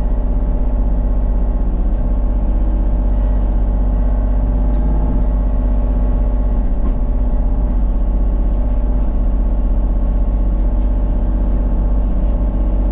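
Excavator's diesel engine running steadily under work, a constant deep drone with no change in pitch.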